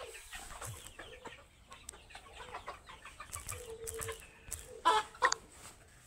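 A flock of young Sonali chickens calling in their pen, mostly soft and scattered, with two short, louder calls close together near the end.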